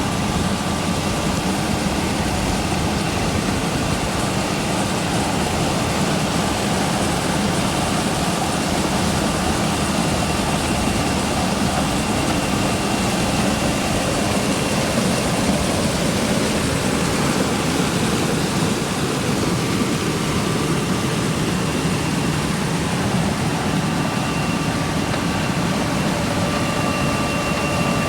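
An engine running steadily, with a faint high whine over a wide rushing noise.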